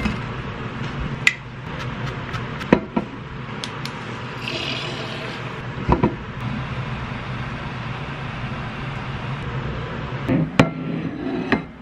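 Kitchen counter handling: plates, a glass jar and utensils clinking and knocking, a few sharp clicks spread out over a steady low hum.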